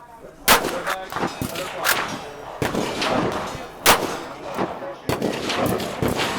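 Gunshots from several firearms on an outdoor shooting range, fired irregularly: a loud shot about half a second in, the loudest just before four seconds, and fainter shots from further down the line in between, each with a short echo.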